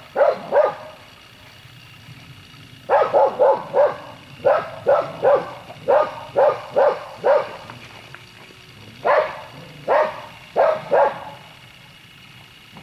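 A dog barking: about twenty short, fairly high-pitched barks in quick clusters, with pauses of a second or two between the groups.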